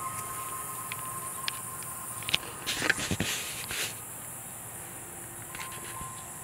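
Outdoor ambience with a steady high insect drone and a few faint clicks, broken about halfway through by a second or so of louder rustling, scuffing noise.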